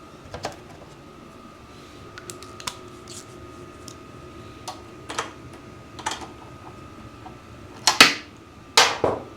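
Scattered clicks and light knocks of tools and parts being handled on a lawn mower, with two louder knocks about eight and nine seconds in. A faint steady tone runs underneath.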